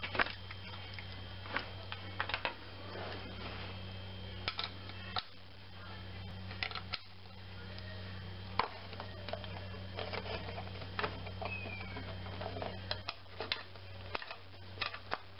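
Scattered light metal clicks and ticks of a 4 mm ball-head Allen wrench turning out the screws under a wooden crib rail cap, over a steady low hum.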